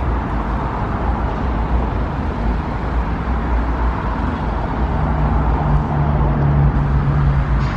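Steady low rumble of engine noise, with a steady hum at one pitch coming in about five seconds in.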